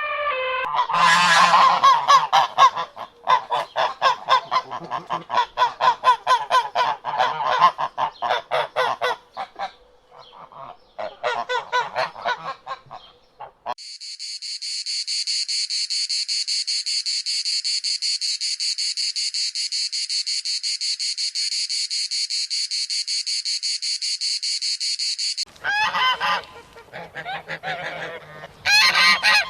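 Rapidly repeated animal calls for about thirteen seconds, then a steady high-pitched trill lasting about eleven seconds, then more calls near the end.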